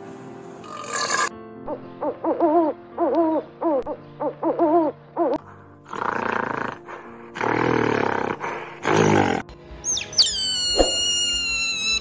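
Animal calls over background music: about eight short calls that rise and fall in pitch, then three loud harsh calls, then high calls sliding downward near the end.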